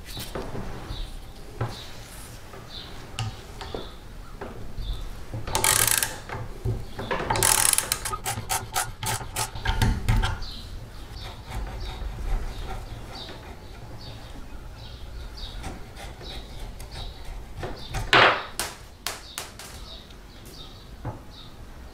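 Screwdriver and small steel parts being worked on a rusty airgun: scraping, a run of rapid ratchet-like clicks about a third of the way in, and a few sharp metal clicks near the end as the lever and washer come off.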